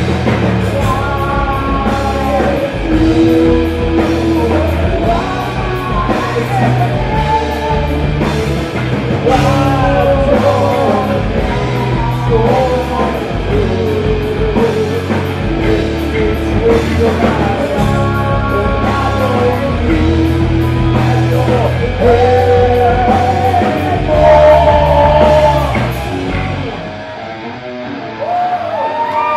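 Live heavy-rock band playing with distorted electric guitars, bass guitar and drum kit, and a voice singing the melody over them. Near the end the band drops to a quieter break of about two seconds, then comes back in with the singing.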